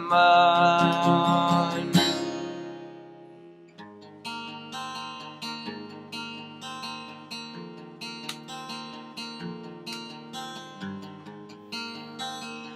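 Acoustic guitar and a male voice holding the last sung note of a line. The voice ends about two seconds in, and the guitar rings out and fades. About four seconds in, the acoustic guitar starts strumming again in a steady rhythm.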